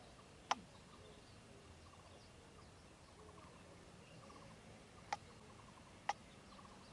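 Faint outdoor ambience with distant bird chirps and trills, broken by three short sharp clicks: one about half a second in and two close together near the end.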